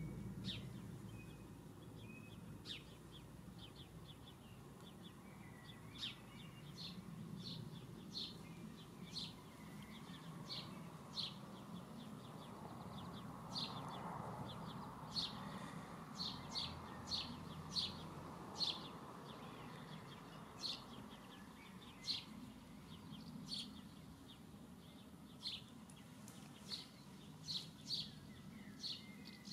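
Faint, short, high chirps from small songbirds, repeated irregularly and coming more often in the second half, over a low steady background hum.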